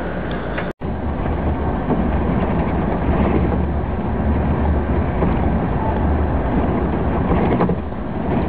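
Tour coach's engine and road noise heard from inside the moving coach: a steady low rumble under an even hiss, broken by a split-second gap in the sound about a second in.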